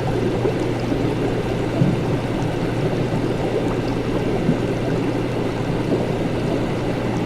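Laboratory ambience: liquid bubbling and gurgling steadily over a constant low hum of equipment, with a couple of faint ticks.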